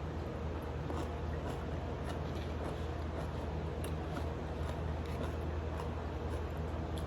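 Chewing and sucking on adobo chicken feet, with small wet clicks and smacks scattered through, over a steady low hum.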